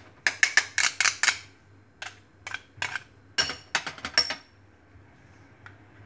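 Metal kitchen utensils clicking and scraping against a steel worktop in quick strokes, in two bursts through the first four and a half seconds, one of them ringing briefly.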